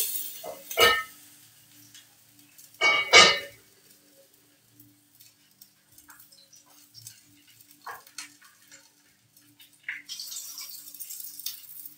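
Metal pots, lids and utensils clanking as they are handled at a stove, with a sharp clank about a second in and a louder clatter about three seconds in, then a few light clinks. A soft hiss comes in near the end.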